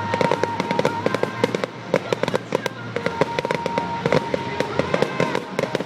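Display fireworks going off in a dense, rapid stream of crackles and bangs, many a second.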